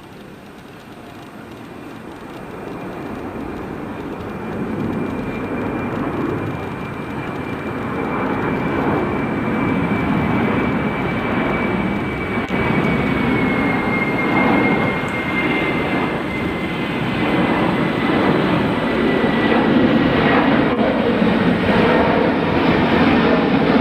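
Airbus A330 jet engines growing steadily louder as the airliner approaches, a broad jet roar with a high turbine whine that slowly drops in pitch.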